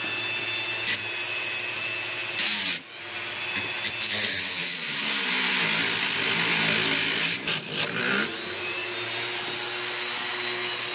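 A small motorised hand tool's motor running steadily. About four seconds in its pitch sags under load with a loud rushing hiss for several seconds, then it picks up again about eight seconds in, with a few short clicks along the way.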